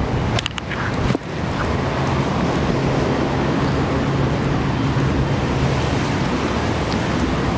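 Strong wind buffeting the microphone over sea waves breaking on the shore, a steady rushing noise with a low rumble that briefly dips about half a second in.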